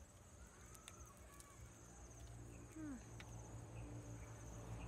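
Faint outdoor insect chirring: a high, steady trill with a fast pulse, with a few faint clicks.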